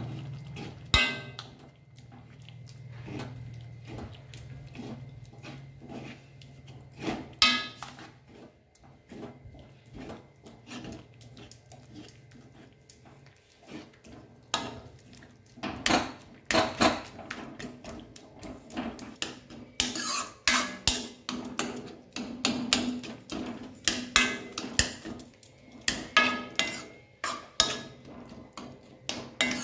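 A metal spoon stirs a thick spinach curry in an aluminium kadai, knocking and scraping against the pan in irregular strokes. The strokes are sparse at first and come quick and steady in the second half.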